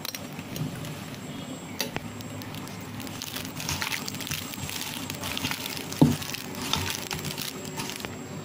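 Chicken legs being mixed by hand into a thick, wet marinade in a stainless steel bowl: irregular soft wet rubbing with light clicks, and one sharp knock about six seconds in.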